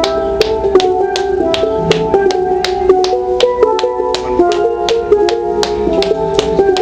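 Steel pan being played: a quick, even run of struck, briefly ringing notes at about four strikes a second, each strike with a sharp click.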